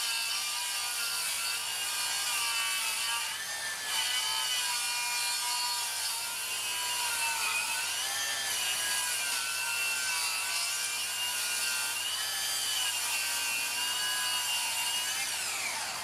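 Makita 40V brushless 235 mm circular saw ripping a long timber board, its motor whine dipping and recovering in pitch as the blade loads up in the wood, then winding down near the end. A dust extractor vacuum on the saw's hose runs along with it.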